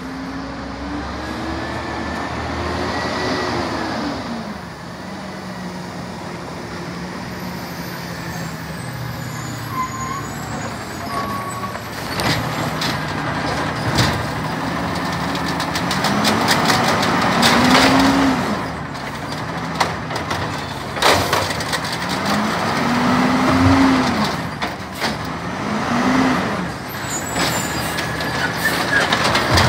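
Diesel engine of a Peterbilt 320 side-loader garbage truck pulling up, its pitch rising and falling several times, with short air-brake hisses. In the latter part the engine revs repeatedly as the Amrep hydraulic arm reaches out for the cart.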